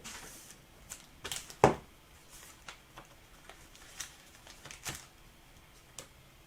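Scattered light clicks and taps of trading cards and their packaging being handled, about a dozen irregular strokes with the sharpest one about one and a half seconds in.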